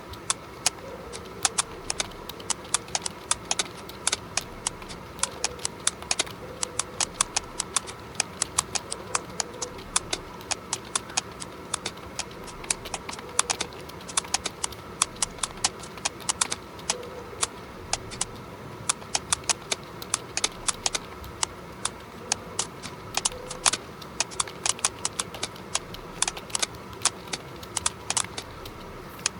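Typing on a mechanical keyboard as a sound test: a continuous, irregular stream of sharp key clicks, several a second, with short pauses between bursts.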